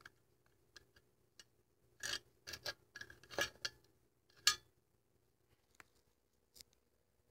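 Handling noise: a few sharp clicks, then a cluster of clicks and short scraping rattles about two to five seconds in, and a couple of faint clicks near the end.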